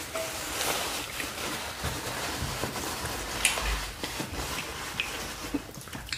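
Close-miked eating sounds: chewing and wet mouth sounds, with a few soft clicks and squishes of seafood-boil food being picked from a metal tray.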